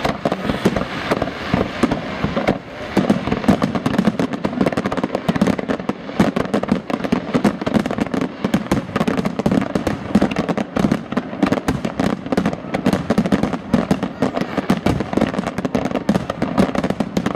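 Aerial firework shells bursting in rapid succession: a dense, unbroken barrage of bangs and cracks.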